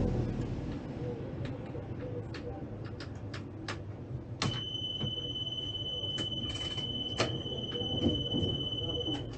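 Cab of a Tatra T3 tram standing still: scattered faint clicks and knocks, then a click and a steady high electronic warning tone that sounds for about five seconds.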